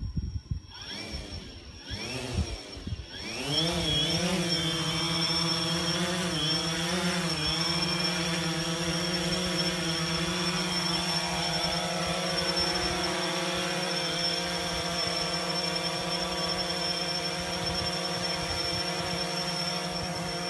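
DJI Phantom 3 Standard quadcopter's four electric motors and propellers spinning up, the whine rising in a few surges over the first three seconds, then a steady buzzing hum with a high whine as it hovers, wavering in pitch a few times early in the hover.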